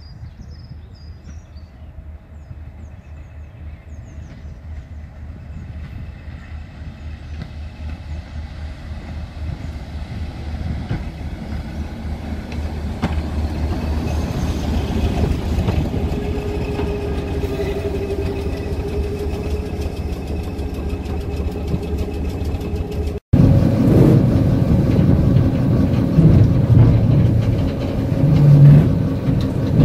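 Diesel train approaching, its low engine hum and wheel noise growing steadily louder as it draws up alongside the platform. After a sudden cut, a louder rumbling, rattling diesel engine and track noise from inside the driver's cab on the move.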